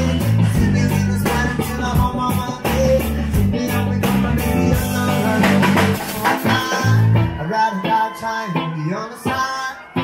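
Live band music: electric guitar and drum kit with a man singing. The low bass notes drop out about seven seconds in, leaving guitar, drums and voice.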